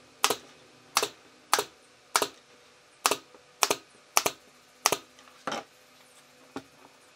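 A run of about ten sharp knocks, evenly spaced a little over half a second apart, like a hand tool striking wood; they stop after about five seconds, with one fainter knock near the end.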